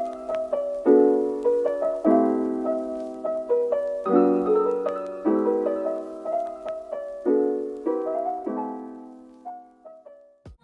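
Soft background piano music, chords struck about once a second, fading out near the end.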